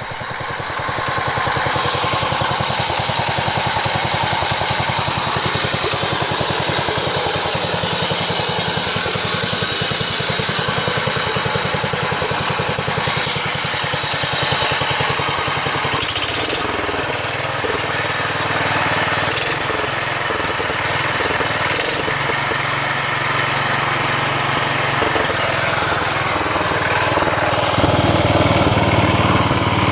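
Engine of a restored Moto-Mower garden tractor running, with a fast, even firing beat. Its note changes about halfway through and gets louder near the end.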